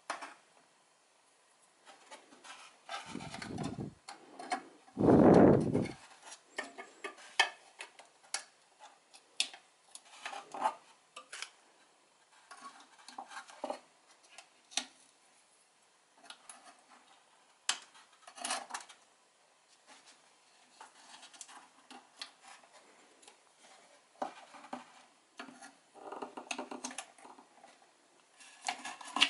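Hand tools handling the inside of a subwoofer enclosure: scattered light clicks, taps and scrapes as tweezers and a screwdriver work at the amplifier board and its wiring. Two longer, louder rubbing noises come about three and five seconds in, the second the loudest.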